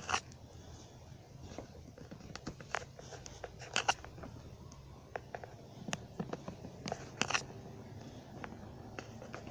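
Steady low hum with scattered light clicks and taps; the loudest come just after the start and about 4 and 7 seconds in.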